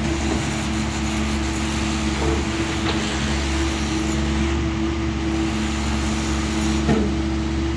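Doosan DX140 wheel excavator's diesel engine running steadily under load, with a couple of brief knocks about three and seven seconds in.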